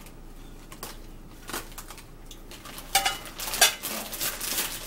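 Ceramic dinner plates clinking together as one is set down on the other: two sharp clinks with a brief ring about three seconds in. Before them comes a quieter stretch with a few faint rustles as chips are tipped from a plate into a chip bag.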